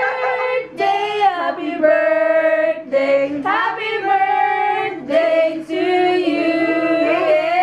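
Several voices, women's and children's, singing together in long held notes that change pitch every second or so, without instruments.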